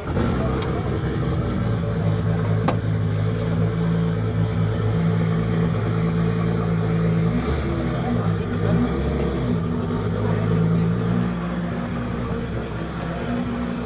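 Turbocharged Nissan RB30 single-cam inline-six running at a steady idle, with a small change in pitch a little past the middle.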